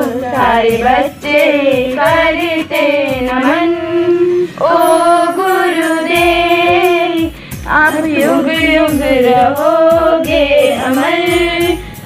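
A group of schoolgirls singing a song together into a microphone, with some long held notes.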